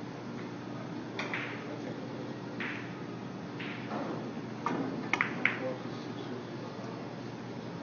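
A cue tip strikes a carom billiard ball, and a moment later several sharp clicks of balls colliding ring out over the steady background of a billiard hall.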